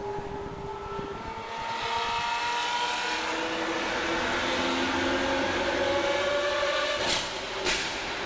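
Lamborghini Aventador V12 with a Brilliant Inconel exhaust accelerating in a tunnel, its engine note climbing steadily in pitch for several seconds. Near the end it lets off with two sharp exhaust pops, afterfire.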